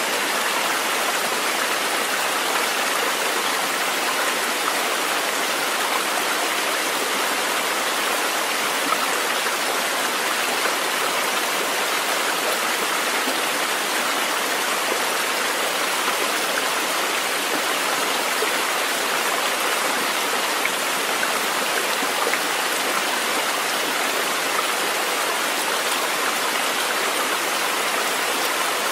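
Nature-sounds recording of flowing water: an even, unbroken rushing hiss with no change in level.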